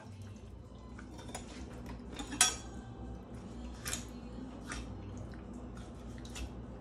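Kitchen knife working on a raw duck on a cutting board: a handful of scattered clicks and knocks of blade and utensils against the board, the loudest about two and a half seconds in.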